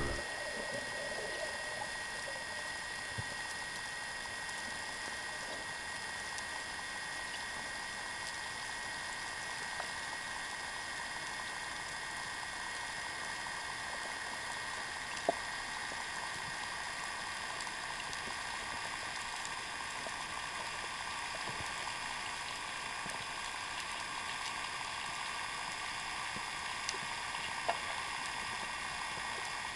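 Steady muffled hiss of the sea heard underwater through a waterproof camera housing, with a thin steady tone and a few faint clicks.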